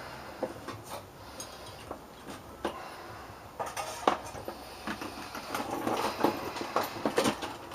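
Irregular clicks, knocks and clinks of small hard objects being handled and set down, getting busier about halfway through.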